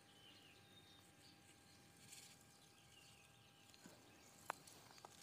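Near silence with a few faint, short high chirps of small animals, and one sharp click about four and a half seconds in.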